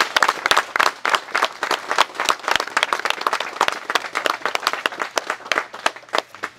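Audience applauding, many hands clapping, the clapping thinning out near the end and stopping.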